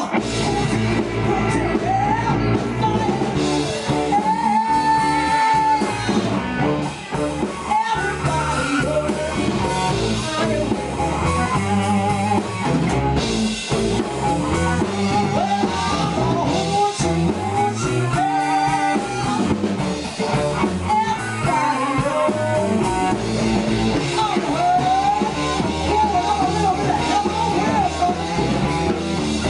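Blues band playing live: electric guitars and drum kit in a steady rock-blues groove, with a wavering melodic lead line over it.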